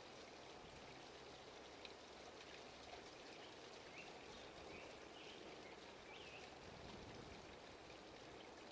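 Near silence: faint steady room hiss, with a few faint short chirps in the middle.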